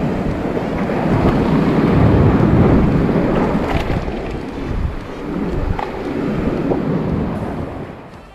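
Wind buffeting the microphone on a beach, a loud rumbling rush over the sound of surf, which swells and eases and dies away near the end.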